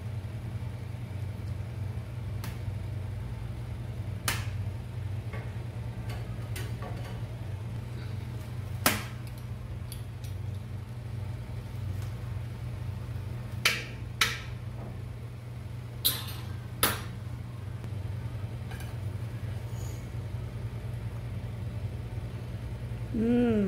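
Metal kitchen utensils, a pizza-cutter wheel and a spatula, clicking and knocking against a metal baking tray while a pizza is cut and a slice lifted: a handful of sharp clicks spread out, two of them in quick pairs. A steady low hum runs underneath.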